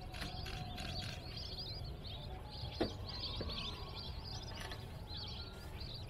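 Many small birds chirping and twittering in a dense, continuous chorus over a steady low rumble, with one sharp click about three seconds in.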